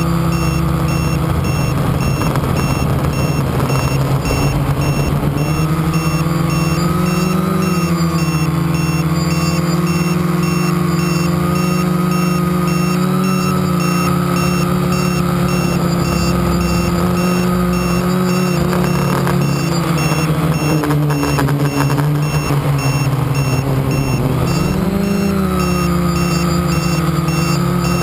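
FPV quadcopter's electric motors and propellers whining steadily. The pitch swells up and back down with throttle about a quarter of the way in, and again near the end.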